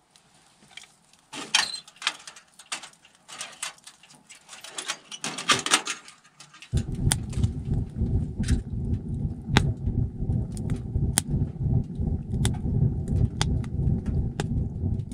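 Split firewood knocking and clunking as logs are loaded into a small woodstove (Woods Walker stove). About halfway through, a steady low rumble of the fire burning in the firebox sets in, with sharp wood crackles and pops over it.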